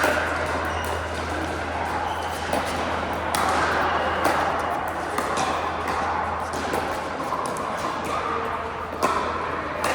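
Pickleball paddles hitting the plastic ball: a string of sharp pops at irregular intervals, roughly a second apart, over a steady low hum.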